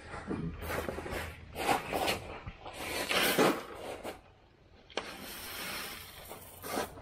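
Gravel handled in a plastic bucket: several short crunching, rattling bursts, then from about five seconds in a steady hiss as the gravel pours out of the tipped bucket onto the ground.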